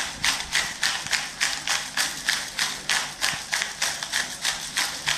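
Hand-held pepper grinder cracking black peppercorns, a quick even run of gritty crunching strokes, about five a second.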